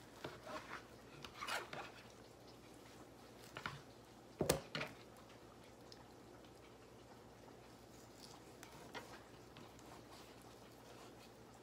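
Knife slicing and scraping through a raw pork rib rack on a plastic cutting board, faint and intermittent, with one sharp knock about four and a half seconds in.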